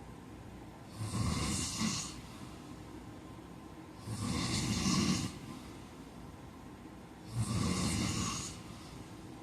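A man snoring: three loud snores about three seconds apart, each lasting about a second, with quieter breathing in between.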